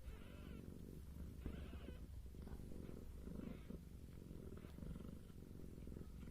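A mother cat purring steadily while her newborn kittens nurse, a low continuous rumble.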